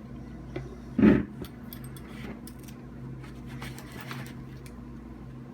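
Slackline ratchet and needle-nose pliers being worked at jammed webbing: one dull knock about a second in, then scattered light metallic clicks and rustles, over a steady low hum.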